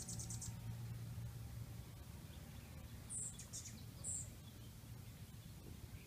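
Hummingbird giving three short, high chip calls about half a second apart, a few seconds in, over a low steady hum. A rapid high trill fades out about half a second in.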